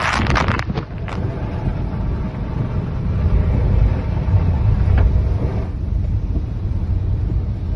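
Typhoon-force wind buffeting the microphone: a loud, steady low rumble, with a few sharp crackling gust hits in the first second.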